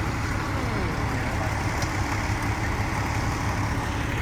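Fire truck's diesel engine idling, a steady low rumble.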